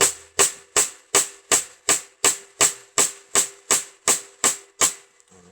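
Snare drum hit in a steady run of fourteen even single strokes, about 2.7 a second, each with a crisp crack and the drumhead ringing on a steady tone underneath; the hits stop shortly before the end.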